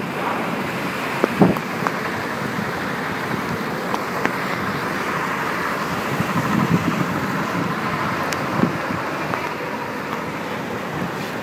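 Typhoon-force wind and heavy rain: a steady roar with a few brief knocks.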